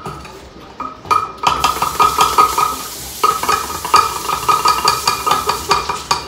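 A utensil stirring cookie dough in a mixing bowl: rapid scraping strokes, several a second, over a ringing note. The strokes start about a second in and pause briefly midway.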